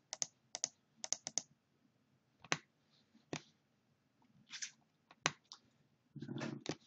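Sharp clicks of a computer mouse and keyboard, a dozen or so spread unevenly, some in quick runs of two to four.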